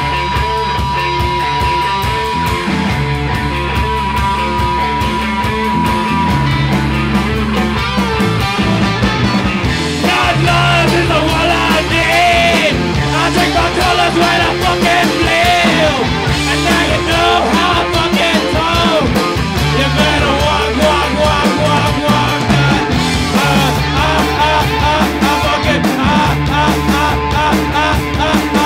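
Live punk rock band playing loud, with distorted electric guitar, bass and drums. A steady high note is held through the first six seconds or so.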